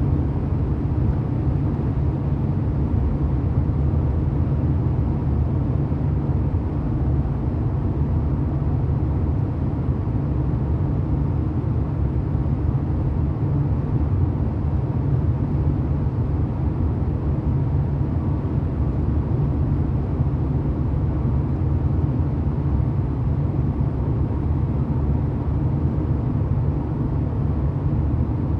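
1990 Porsche 911's air-cooled flat-six engine running steadily, a low, even drone that holds the same pitch throughout with no revving.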